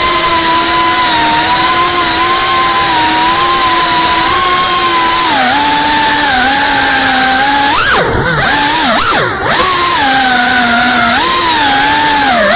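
Brushless motors of a GEPRC Cinelog35 FPV cinewhoop drone whining steadily in flight, the pitch drifting up and down with throttle. A bit past halfway the throttle is chopped and punched twice, and the whine swoops sharply down and back up each time.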